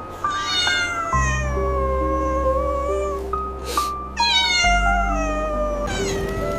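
A cat meowing twice, two long drawn-out meows that fall in pitch, over background music with sustained low notes.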